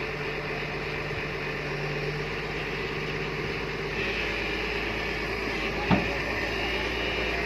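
Excavator's diesel engine running steadily under load as the bucket works the soil, with a higher whine joining about four seconds in. A single short, sharp knock about six seconds in.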